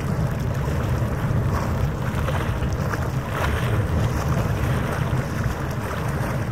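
Steady wind rumble on the microphone over open harbour water, with a low drone of boat engines underneath.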